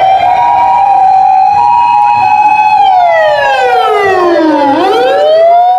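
Ambulance siren wailing: it rises over the first second, holds high, falls slowly and climbs again near the end, with a steady two-note tone sounding alongside.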